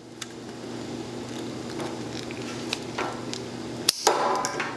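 Wire crimper-stripper being handled, its metal jaws giving scattered sharp clicks, with a louder clack and clatter about four seconds in, over a steady low hum.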